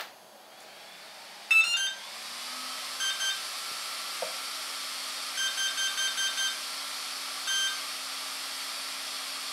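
A click as the main battery connector goes in, then a HobbyWing Platinum 120 A ESC beeps through its calibration. It plays a short rising start-up tune, then two beeps about three seconds in, signalling that full throttle has been registered. A run of about six quick beeps and a single longer beep near the end follow as the calibration completes, over a steady whir from about two seconds in, the ESC's cooling fan running.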